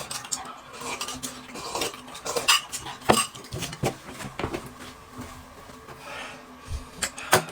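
Dishes and cutlery clinking and knocking as tableware is handled, in irregular clicks with a louder knock about three seconds in and another near the end.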